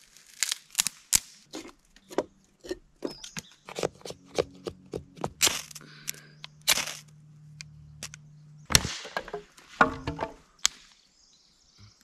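Hand woodwork for fire-making: a run of sharp cracks and knocks as kindling is split, then a steel knife blade shaving resinous fatwood into curls. A faint low hum sits underneath for several seconds in the middle.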